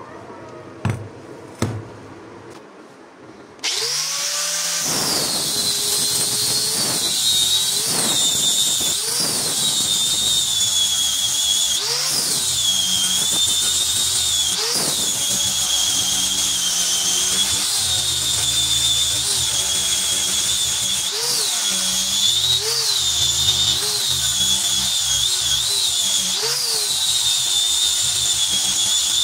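A power grinder grinding a steel machete blade. After two short clicks, it starts abruptly about four seconds in and runs with a loud high whine, its pitch dipping briefly again and again.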